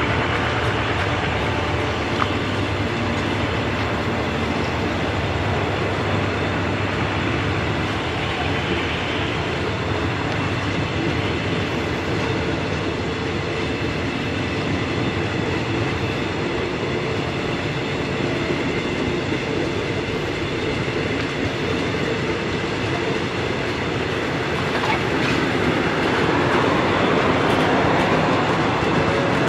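Eastern & Oriental Express passenger coaches rolling slowly past, a steady running noise of steel wheels on rail with a light clatter over the rail joints. It grows a little louder near the end.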